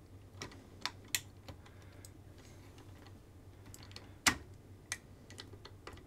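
Small pins and retaining nuts being fitted by hand into an RC excavator's quick-disconnect: scattered light clicks and taps as the parts are handled and pushed into place, the loudest about four seconds in.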